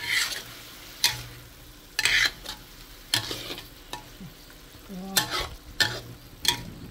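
Metal spatula scraping and stirring a wet stir-fry of phum (watermeal) and minced pork around a steel wok, about one stroke a second, over a steady sizzle of frying.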